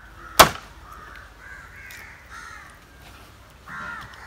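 A knife chops once, sharply, through a tuna head on a plastic cutting board about half a second in. Crows caw faintly in the background.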